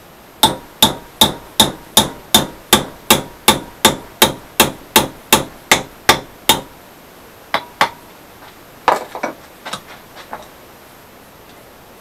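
A hammer striking a steel rod clamped in a bench vise to bend it into a pump handle. About seventeen ringing blows land at a steady pace of nearly three a second, then after a short pause come two more blows and a few lighter taps.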